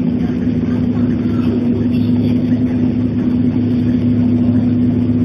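Steady engine drone of a public bus heard from inside the passenger saloon, with a constant low hum and a wash of running noise.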